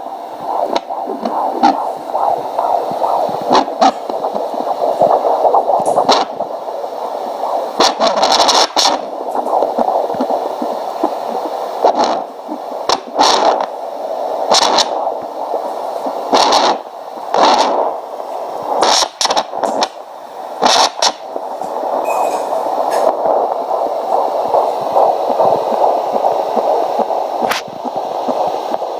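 Fetal Doppler's speaker hissing and whooshing as its probe is moved over gel on a pregnant belly while searching for the baby's heartbeat, with scraping crackles from the probe now and then.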